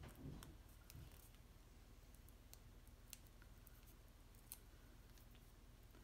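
Near silence, with faint scattered light clicks and taps as small cardstock pieces are handled and pressed into place by hand.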